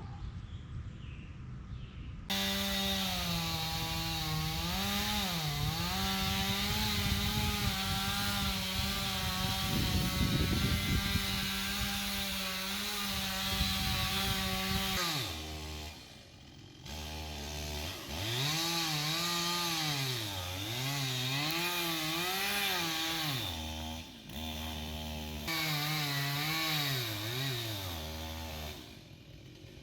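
Two-stroke chainsaw running near full throttle while cutting into oak, its engine note sagging under load and recovering. About halfway through the revs drop, then the saw is revved up and down several times before it falls away near the end.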